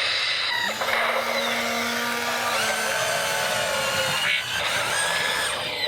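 Imaginext Batbot toy making a loud, whirring, machine-like sound with gliding electronic tones, and a steady low hum from about a second in to about three seconds in.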